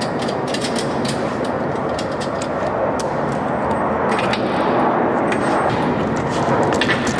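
Steady machinery noise with many sharp metallic clicks and taps from hand tools on an F-16's wing pylon and munitions as weapons loaders prepare the jet.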